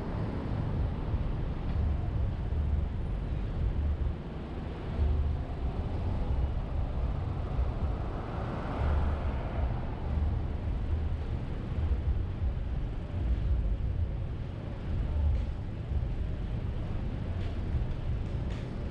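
Street traffic and road noise heard from a moving car through an outside-mounted action camera, with gusty low rumble of wind on the microphone. The noise swells briefly about eight to nine seconds in.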